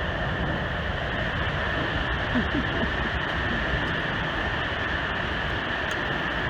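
Steady, even rush of water from the Great Falls of the Passaic River, a large waterfall.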